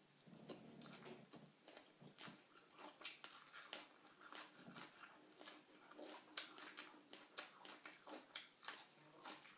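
Faint close-up eating sounds: a person chewing and biting food, with many small irregular wet clicks and crunches of the mouth.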